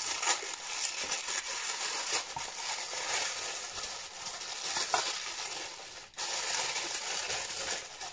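White tissue paper rustling and crinkling steadily as it is pulled open and unfolded from around products in a cardboard box, with a brief break about six seconds in.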